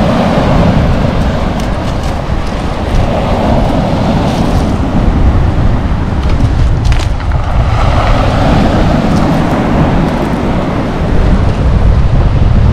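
Wind buffeting the microphone over sea waves breaking and washing up the shore, the surf swelling and falling back every few seconds.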